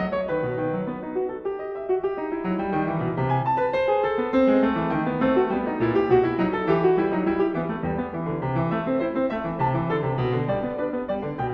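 Background piano music: many short notes played continuously.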